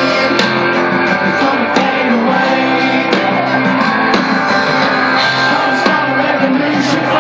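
Live rock band playing loud through a festival PA, with electric guitars and drums, recorded from the crowd.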